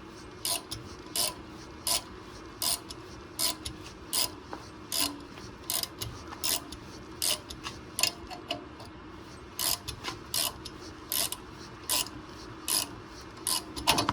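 Ratchet wrench clicking in a slow, even rhythm, about three clicks every two seconds, as it is worked in short strokes to turn the bolt of a home-made puller that forces a seized front wheel hub out a little at a time.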